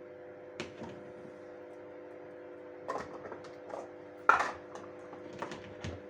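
Kitchen utensils and plastic dishes handled on a worktop during apple coring: a scattered series of light clicks and knocks, with one much louder knock about four seconds in, over a steady low hum.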